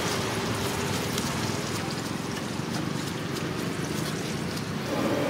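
Masala vadas deep-frying in hot oil, a steady sizzling hiss with small crackles.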